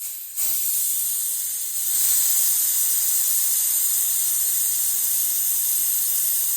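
Hydrocarbon refrigerant gas hissing out of a line fitting as the line is bled, a loud steady high hiss that starts suddenly and gets a little stronger about two seconds in.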